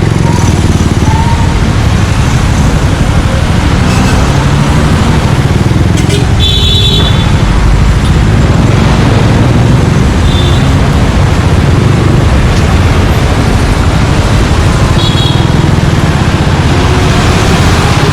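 Suzuki Gixxer 155's single-cylinder engine running through an aftermarket Yoshimura exhaust while riding in street traffic. A few short high-pitched beeps cut through it about 7, 10 and 15 seconds in.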